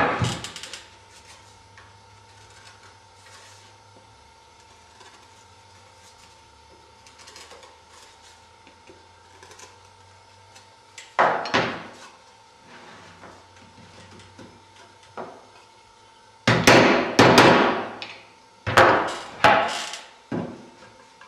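Wooden wing ribs being tapped down into notches in a wooden spar: loud sharp knocks on wood, a short cluster about 11 s in and a quick run of knocks over the last five seconds, with a long quiet stretch before them.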